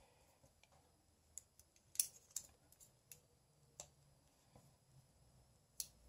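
A few faint, scattered clicks of metal parts as a partly disassembled Leatherman Charge multitool is handled, the sharpest about two seconds in.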